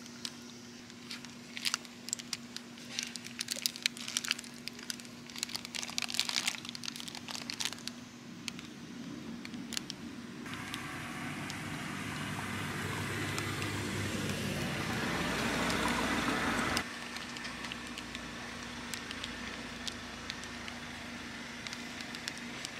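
A paper wrapper crinkles and rustles in the hands with many small crackles. About ten seconds in, a passing car grows steadily louder for about six seconds, then cuts off suddenly. A steady low hum sits underneath throughout.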